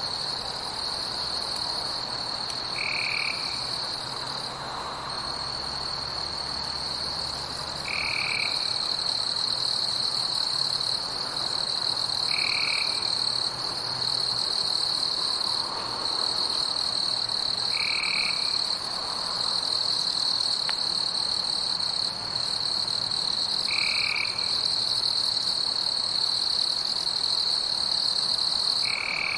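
Night forest ambience: a steady, high-pitched insect chorus, with a short call repeating about every five seconds.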